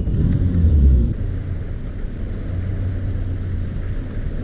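Outboard motor of a bass boat running low and steady as the boat eases in toward a dock, with a louder low rumble in the first second that then settles.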